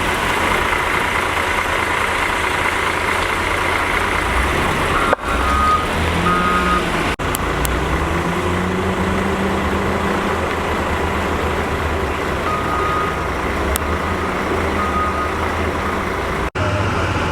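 Heavy construction machinery engines running steadily, with a few short high beeps. The sound cuts out for an instant three times.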